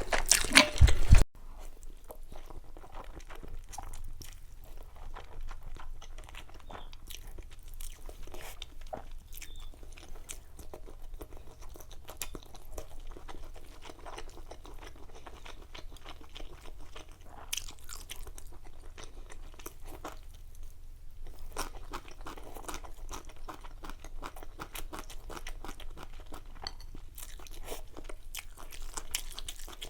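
A person chewing and crunching food close to the microphone. A loud stretch of crunching in the first second stops abruptly, then steady, quieter chewing with many small clicks follows.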